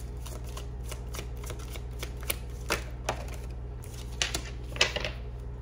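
A deck of oracle cards being shuffled by hand: a run of quick, irregular card clicks and flicks, the loudest near the end, over a low steady hum.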